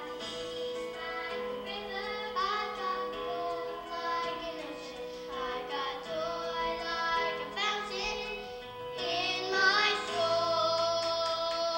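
Children's choir singing a song with accompaniment, closing on a long held note in the last few seconds.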